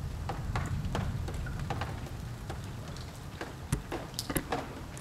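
Light rain: scattered, irregular drops ticking near the microphone over a low rumble that slowly fades, with a few sharper ticks late on.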